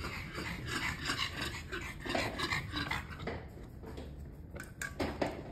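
Pet dog making a run of short, irregular noises for about three seconds, then a few sharp clicks near the end.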